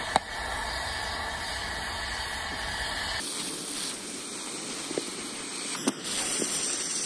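Steady hissing of an oxy-fuel cutting torch working on steel. Its character changes abruptly about three seconds in, and a few sharp clicks sound over it, the loudest right at the start.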